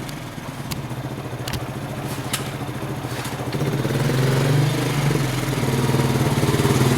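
Honda Rancher 350 ATV's single-cylinder four-stroke engine running steadily on its freshly rebuilt top end, growing louder from about four seconds in. Three light clicks in the first half.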